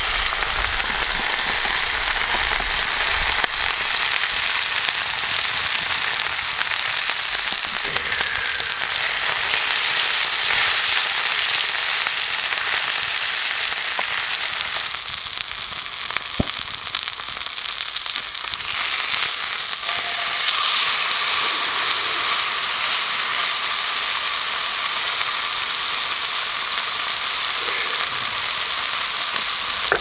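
Thick marbled beef steak searing in an iron skillet over a wood fire: a loud, steady sizzle as its fat renders and spits, with a few sharp pops.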